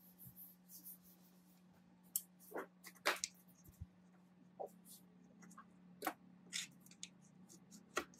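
Screwdriver tip working the screws of a rusty sheet-metal panel: scattered small clicks and scrapes of steel on metal, the sharpest about three, six and eight seconds in. A low steady hum runs underneath.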